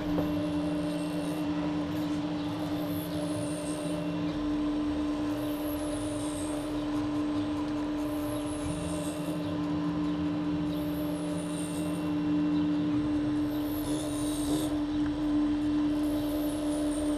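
RepRapPro Mendel 3D printer running mid-print: a steady hum from the print head's cooling fans and stepper motors, with a lower motor tone that comes and goes twice and a falling high-pitched whine that repeats about every one and a half seconds as the head moves.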